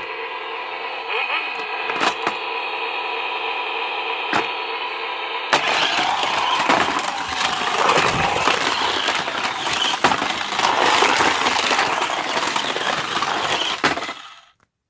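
Battery-powered Shake N Go toy cars playing electronic engine and racing sound effects through their small speakers, with a couple of sharp plastic clicks. About five and a half seconds in it becomes louder and rougher, with rattling, then cuts off abruptly near the end.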